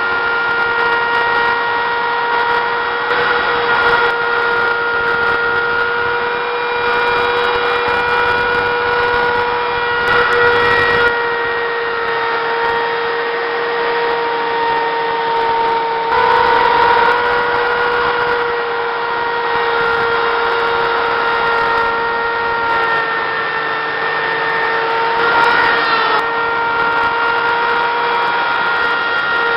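Router running at speed with a bearing-guided 1/2-inch round-over bit, cutting a rounded edge on an elm guitar body: a steady high motor whine that shifts slightly in pitch now and then.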